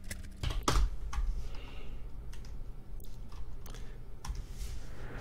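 Irregular clicks and taps of a computer keyboard and mouse, about a dozen scattered through, over a faint low hum.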